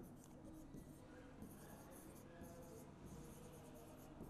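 Faint strokes of a marker writing on a board, in short irregular bursts.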